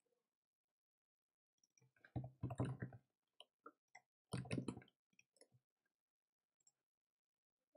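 Computer keyboard typing: two quick runs of keystrokes, about two and four and a half seconds in, with scattered single key or mouse clicks between and after.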